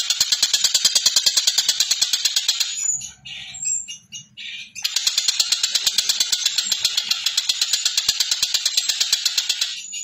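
Tengkek buto (Javan kingfisher) calling in a fast, harsh, even rattle of about nine notes a second. It pauses for about two seconds about three seconds in, then rattles on again.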